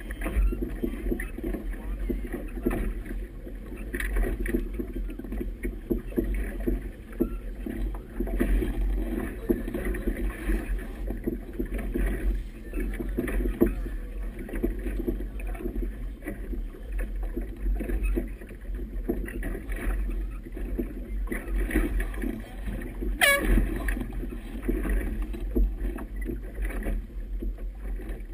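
Wind buffeting the microphone with choppy water slapping against a moving boat's hull in a strong breeze, a steady rumbling, splashing noise. One brief high squeak sweeps up sharply about 23 seconds in.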